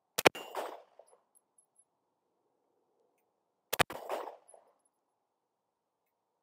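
Two 9mm pistol shots from a Smith & Wesson M&P 2.0, about three and a half seconds apart, each a sharp crack followed by a short echo.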